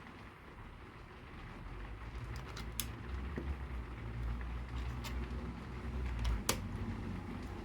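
LEGO bricks being handled and pressed together, with a few sharp plastic clicks, over a low rumble that swells from about a second and a half in.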